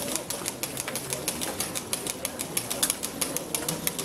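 Footsteps of a marching procession on a cobblestone street: many sharp, irregular clicking taps, several a second, over a faint low murmur of the crowd.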